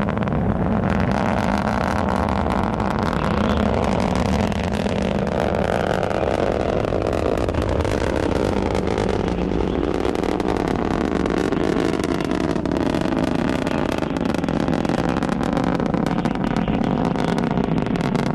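Delta IV Medium+ (4,2) rocket in powered ascent, its RS-68 main engine and two solid rocket boosters firing: a loud, steady low rumble shot through with continuous crackling.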